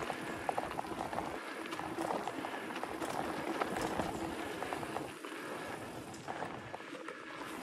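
Specialized Stumpjumper mountain bike rolling fast over dirt singletrack: a steady rush of tyres on dirt, dotted with many small clicks and rattles from the bike.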